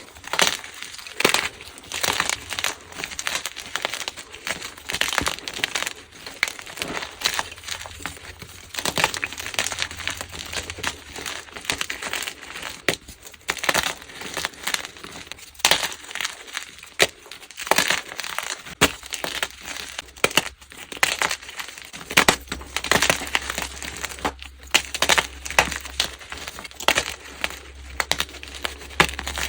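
Blocks of plain gym chalk being crushed and crumbled, giving crisp, irregular crunches and crackles.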